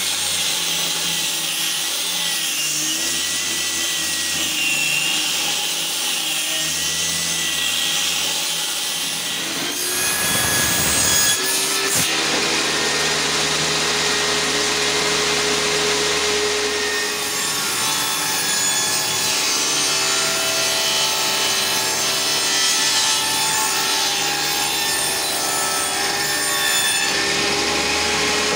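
Angle grinder with a sanding disc sanding a wooden pallet board, its whine drifting in pitch as it bears on the wood. About ten seconds in it gives way to a table saw running steadily while small pieces of wood are grooved on it.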